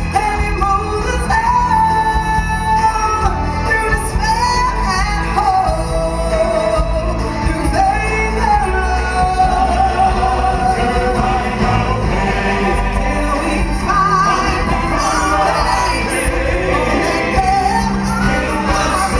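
Stage-show song: singers performing over loud band accompaniment with a steady bass line.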